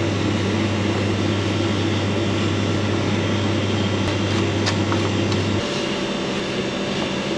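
Steady mechanical hum and rushing air, like ventilation machinery running; a low hum in it cuts out about five and a half seconds in. A few light clicks of a hand tool at the switch terminals come just before.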